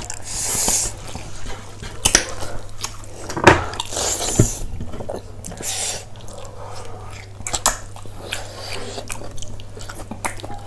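Close-up eating sounds: chewing and wet slurping of buffalo-foot soup, with a few sharp clicks of a spoon on the bowl, over a steady low hum.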